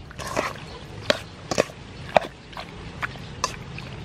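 Octopus being mixed by hand and with a metal spoon in a chili-sauce marinade in a stainless steel bowl: wet squelching, with the spoon clinking sharply against the bowl about every half second.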